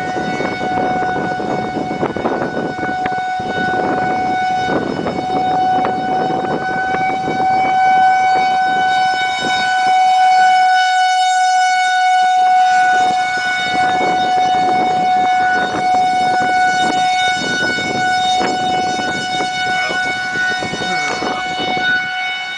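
Outdoor tornado warning siren sounding one long steady tone that swells and fades slowly, with gusty wind noise rumbling underneath.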